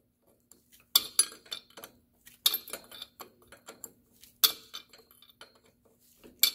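Hand wrench tightening a bolt on a drive shaft U-joint flange: sharp metallic clinks about every two seconds as the wrench is swung and reset on the bolt, with lighter clicks between.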